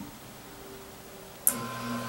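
A relay clicks about one and a half seconds in and the treadmill linear actuator's motor starts a steady hum as the press ram drives down.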